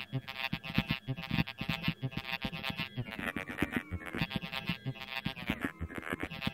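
Live experimental music for trumpet and electronics: a dense layered texture of held pitched tones over fast, irregular pulsing attacks, with several tones gliding in pitch about halfway through.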